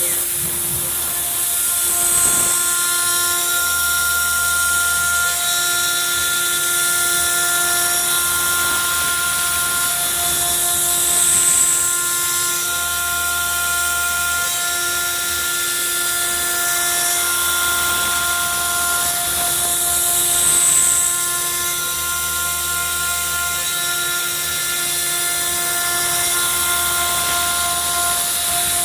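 CNC router spindle running at high speed and cutting rubber: a steady high whine with a hissing cutting noise, swelling slightly about every nine seconds as the cut goes on.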